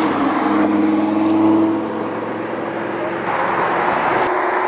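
Lamborghini Gallardo LP560-4's V10 driving past at steady revs, its engine note falling off about two seconds in as the car moves away.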